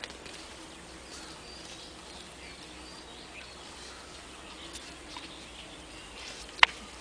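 Outdoor ambience: a steady background hiss with faint, scattered high chirps, and one sharp click a little before the end.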